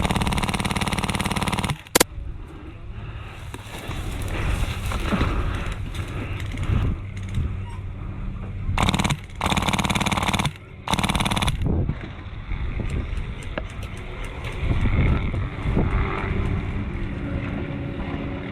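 Airsoft gun firing full-auto bursts: one at the start, a sharp click about two seconds in, then three short bursts in quick succession around the middle, with rustling movement in between.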